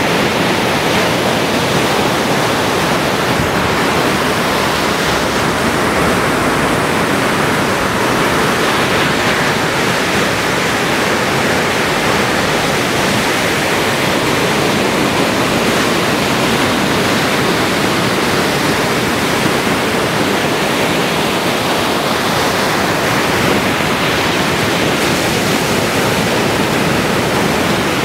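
Ocean surf breaking along the beach: a steady, loud rushing roar.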